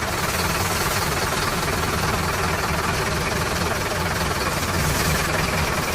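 A heavy engine running steadily at idle, with an even, low knocking throb.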